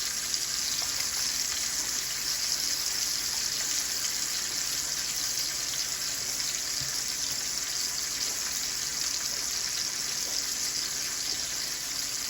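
Ribeye steak sizzling steadily in a hot frying pan as it sears to form a crust.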